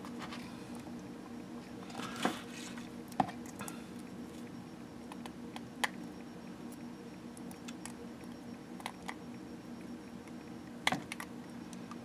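Scattered small clicks and taps from pliers and small lead sinkers being handled and fitted to a lure, a few sharper ones standing out, over a steady low hum.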